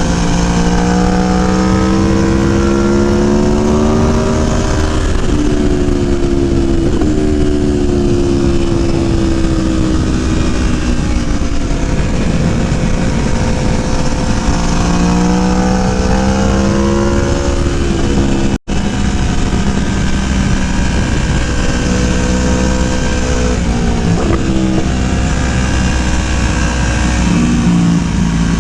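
Aprilia Tuono V4 1100's V4 engine running hard on track, its pitch climbing through the revs and dropping back again several times as the bike accelerates and slows. The sound cuts out completely for an instant about two-thirds of the way through.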